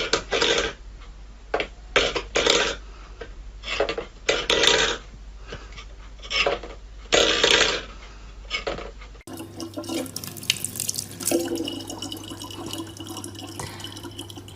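Water splashing in short, irregular bursts; then, after a cut about nine seconds in, a tap running steadily over a low hum.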